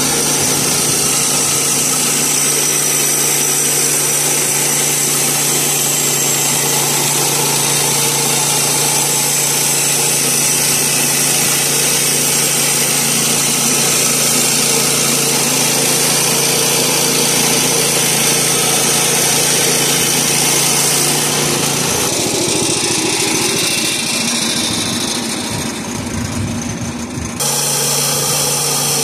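Woodland Mills HM122 portable bandsaw mill with its 7 hp gas engine running steadily as the band blade cuts through a sycamore log. For a few seconds near the end the steady engine note drops out and the sound turns rougher and slightly quieter, then comes back.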